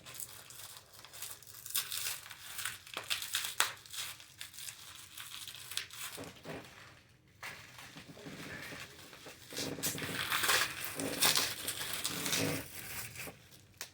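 Plastic packaging and shredded packing filler crinkling and rustling in irregular handfuls as the item is unwrapped by hand, louder near the end.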